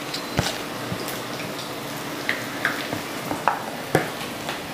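Onion pakoras in gram-flour batter, freshly dropped in, frying in hot oil in a pan: a steady sizzling hiss with scattered sharp pops and crackles.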